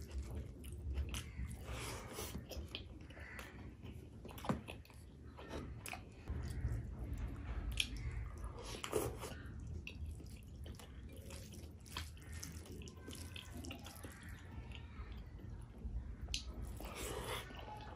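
Wet chewing and lip smacking of rice and curry eaten by hand, with soft squelches as fingers mix the rice and curry on a plate; many short sharp clicks scattered throughout.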